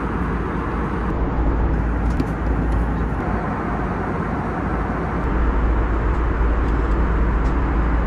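Steady cabin noise of an Airbus A321 airliner in flight: engine and airflow noise with a strong low rumble.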